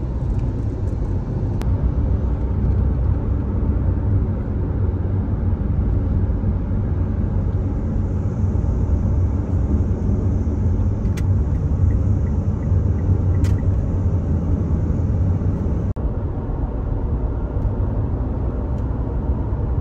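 Steady low rumble of road and engine noise inside a moving Mitsubishi car's cabin at highway speed. There are a couple of faint clicks in the middle and a momentary dropout about three-quarters of the way through.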